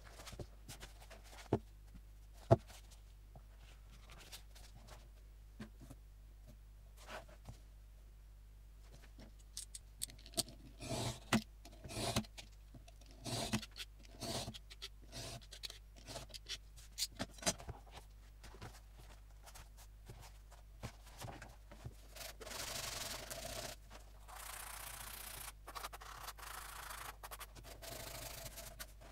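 A sharp tap about two and a half seconds in, then from about ten seconds a run of separate scraping strokes as a snap-off utility knife cuts paper along a metal ruler, then steady rubbing against paper through the last several seconds.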